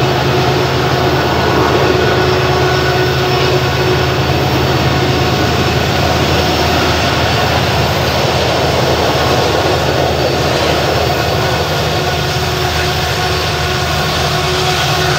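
Diesel freight locomotives running steadily, with a steady engine tone over the noise of the rolling train.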